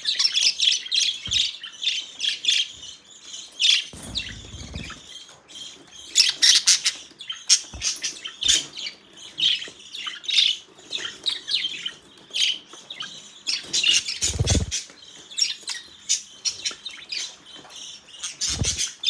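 Several budgerigars chirping and chattering nonstop in rapid, short, high calls, with a few squawks.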